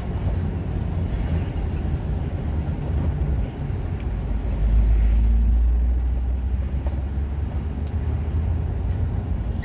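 Car driving, heard from inside the cabin: a steady low engine and road rumble. About halfway through, a louder low rumble lasts a second or so as the car rolls over a speed bump.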